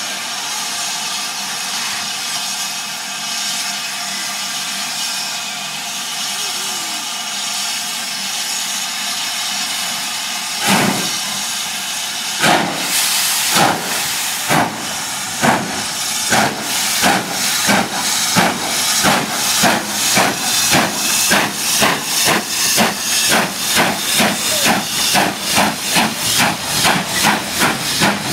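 Steam locomotive hissing steam, then pulling away with exhaust chuffs that start about a second apart and quicken to around three a second as it gathers speed.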